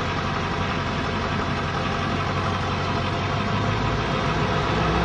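Vehicle engine running steadily, a low even hum with no distinct events.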